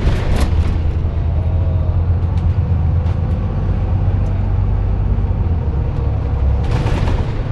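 Dennis Trident double-decker bus under way, its diesel engine giving a steady deep rumble as heard from inside the upper deck. A short rushing hiss comes just after the start and again near the end.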